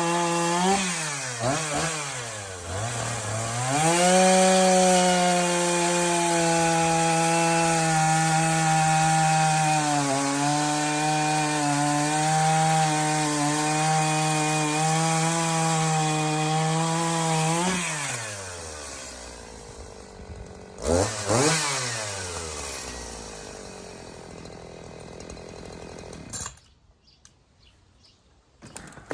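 Brand-new, stock Echo CS-501P 50cc two-stroke chainsaw at full throttle cutting through a pine log, its pitch sagging slightly under load for about fourteen seconds. It then drops back to idle, gets one short rev, and is switched off a few seconds before the end.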